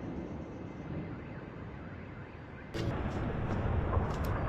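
Low rumble of distant explosions over a city. About two-thirds of the way in it jumps suddenly louder, with scattered crackles, and keeps building.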